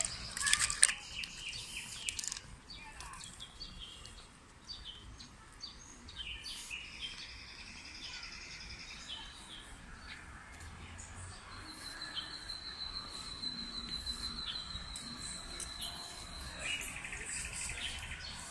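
Small birds chirping and singing, with a long, high, even trill through the middle. A brief, sharp, loud sound comes about a second in.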